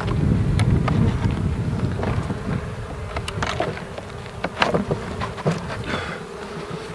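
Honeybees buzzing in an open hive while combs are handled, with scattered knocks and clicks of wood on wood. A louder low rumble fills the first couple of seconds.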